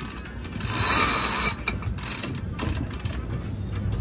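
Sailboat winch clicking its ratchet as a line is hauled in around it by hand, hoisting the mainsail.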